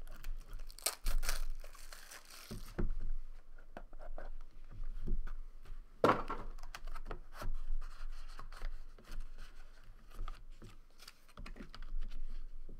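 A trading card box's wrapper torn open about a second in, followed by rustling, light scrapes and small knocks as hands open the cardboard box and handle the cards.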